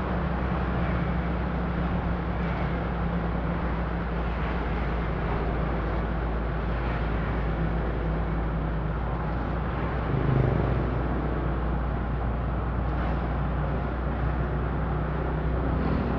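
Steady road and engine noise from a vehicle driving in traffic, with a low, even hum under it and a brief louder swell about ten seconds in.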